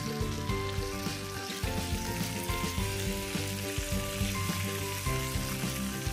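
Chicken thighs sizzling in hot oil in a grill pan, a steady frying hiss, under background music with slow chord changes.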